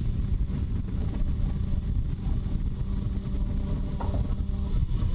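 Sport motorcycle's engine running steadily at highway cruising speed, under heavy wind rumble on the rider's microphone.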